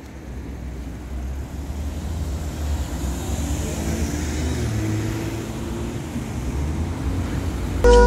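Cars driving past on a city street: a steady traffic rumble with tyre noise.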